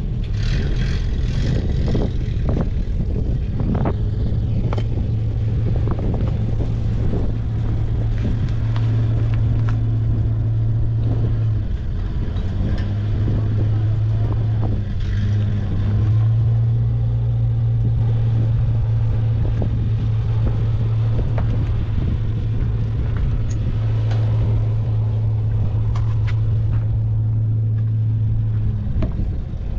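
A steady low engine drone at a constant pitch, with scattered knocks and clicks over it.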